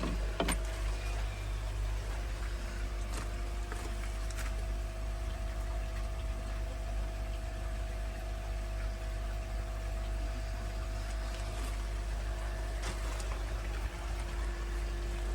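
Water pump humming steadily, with water running.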